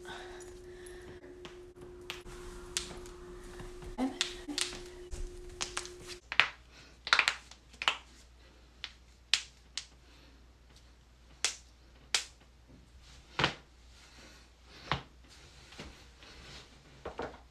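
Joints cracking: a long series of sharp pops at irregular intervals, some single and some in quick pairs.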